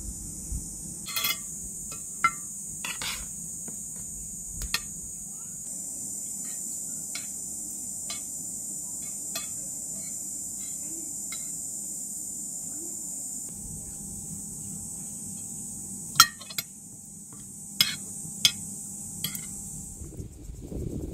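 Metal forks and spoons clinking and scraping against plates during a meal, in scattered sharp clicks, the loudest few in the second half. Behind them runs a steady high insect drone.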